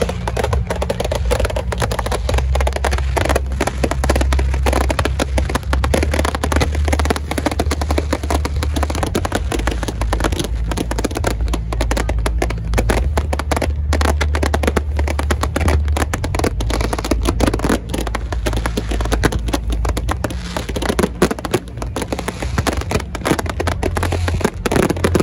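Fireworks display: a dense, continuous run of bangs and crackles from bursting shells, over music with deep steady bass notes.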